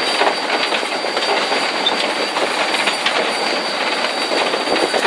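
Steam locomotive No. 699 running along the line, heard from on board: a steady rattle and clatter of wheels over the track, on a bouncy ride.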